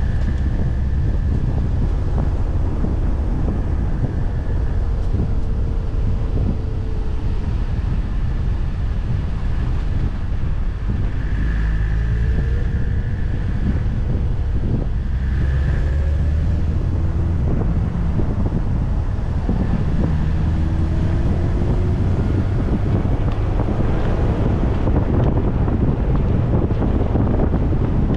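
Car on the move: a steady low rumble of road and engine noise, with wind buffeting the microphone. The engine note rises and falls a few times as the car changes speed.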